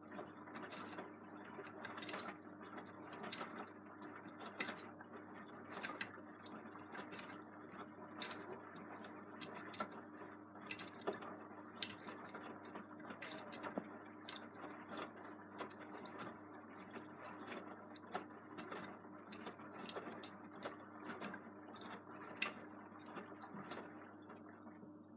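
Beko WM74165W washing machine running its wash, the drum turning with a steady motor hum and many irregular sharp clicks and knocks.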